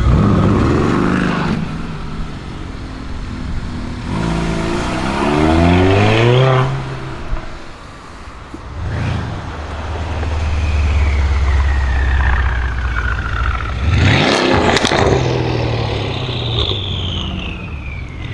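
Mercedes-Benz S63 AMG's twin-turbo V8 with a decat exhaust, revved in several rising blips between stretches of steady running. After the revs the turbos give a high whistle that falls in pitch, and around two-thirds of the way in a quick run of sharp exhaust pops and crackles from the pops-and-bangs tune.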